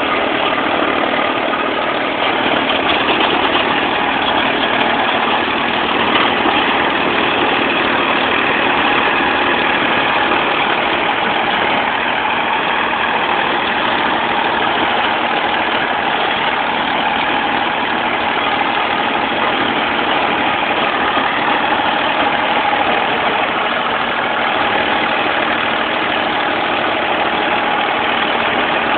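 Massey Ferguson tractor's diesel engine running steadily under load while it drives a rear-mounted rotary tiller through the soil.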